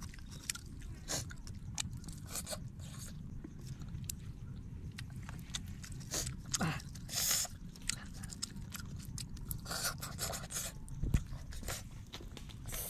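Close-up eating sounds: fingers picking and tearing grilled frog in chili sauce in a coconut-shell bowl, with scattered scrapes, clicks and chewing. A few louder crunches come about a third of the way in and again past the middle.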